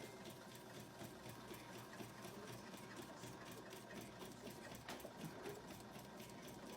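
Home sewing machine running slowly through a thick quilt sandwich, a faint, even rhythm of stitches as straight-line quilting is sewn.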